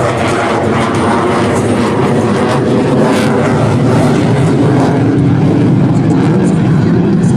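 Jet noise from F/A-18 Super Hornets flying a display: a loud, steady rushing sound, growing slightly louder toward the end.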